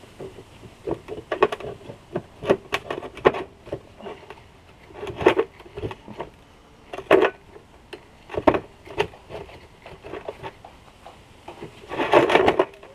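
Needle-nose pliers clicking and scraping against a Subaru TGV housing as the butterfly valve parts are worked out: irregular sharp metallic clinks every second or so, with a denser run of clatter near the end.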